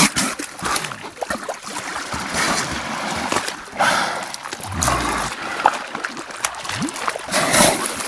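Water splashing and sloshing as beluga whales move at the surface, with a few short rising squeaks from the belugas.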